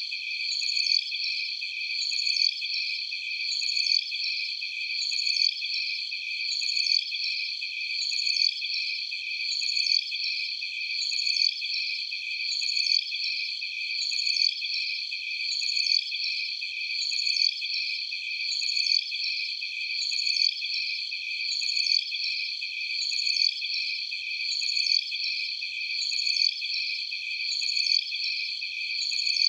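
Night-time jungle ambience of a dense insect chorus, steady high cricket-like trilling with nothing low in it. A swelling call repeats evenly about every one and a half seconds.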